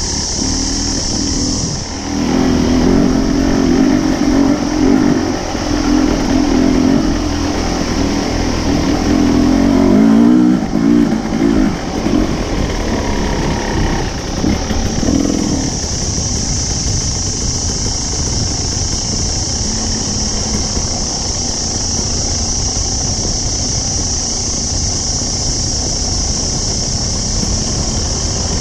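Dirt bike engine revving up and down as it is ridden along a rough bush trail, loudest for the first half, then running lower and steadier near the end. A steady high hiss runs under it while the engine is quieter.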